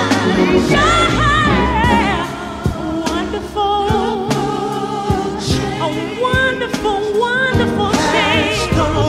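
Gospel music: a singer holding long, wavering notes with vibrato over instrumental accompaniment.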